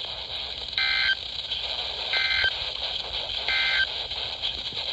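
NOAA Weather Radio Emergency Alert System end-of-message signal: three short, identical bursts of warbling digital SAME data tones, each a fraction of a second long and about 1.3 s apart, over steady radio receiver hiss. It marks the close of the Special Marine Warning broadcast.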